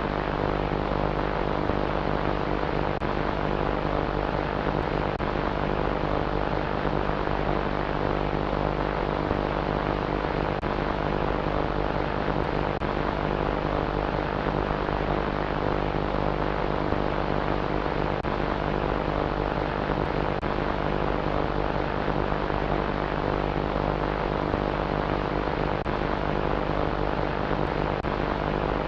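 Monster close-call sound effect: a steady, unchanging drone of several held low tones over a hiss, with no breaks or separate hits.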